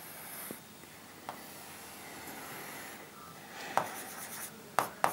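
Faint scraping of a pen stylus drawing on a digital writing board, with a few light taps of the pen on the board surface near the end.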